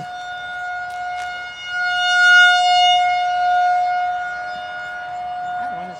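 Federal Signal 2001-130 outdoor tornado warning siren sounding a steady single tone, swelling to its loudest about two seconds in and then easing off as the rotating siren turns toward and away; it is sounding for the routine monthly test.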